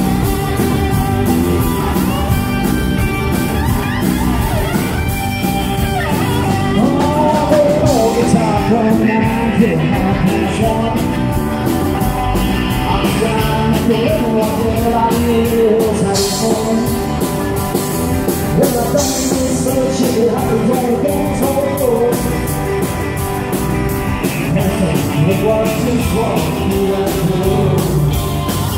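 Live country band playing, with electric bass, guitars, keyboard and a steady drum beat, and a male lead singer singing into a handheld microphone.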